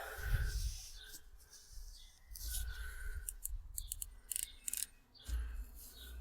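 A run of faint, quick clicks and rasping rubs, bunched in the middle, from handling the scope controls while zooming back out. A low rumble on the microphone comes in near the end.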